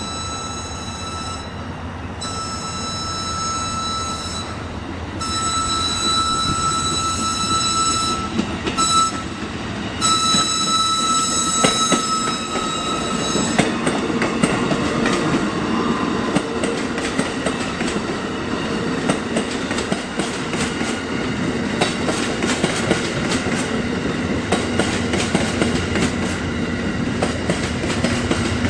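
Passenger train's back-up whistle blowing a string of blasts, long ones with a short one near the end, as it sounds for a grade crossing while backing. About halfway through the whistle stops and the train rolls past, its wheels clacking steadily over the rail joints.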